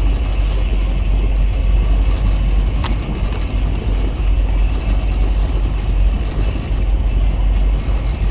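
Steady low rumble aboard a fishing boat, with one sharp click about three seconds in.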